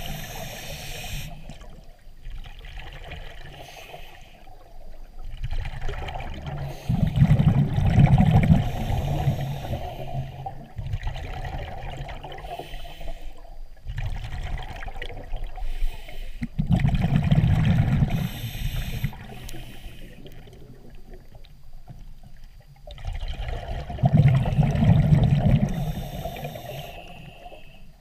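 Scuba diver breathing through a regulator underwater: bubbly exhalations with a low rumble and hiss alternate with quieter inhalations in slow repeating cycles.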